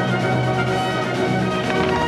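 Orchestral music with brass playing sustained chords, a show soundtrack played over loudspeakers.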